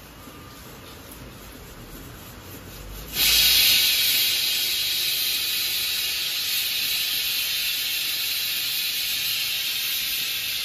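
Pressure cooker whistle venting steam: a loud, steady hiss that starts abruptly about three seconds in and cuts off sharply at the end, the sign that the cooker has come up to pressure. Before it, a quieter steady hiss.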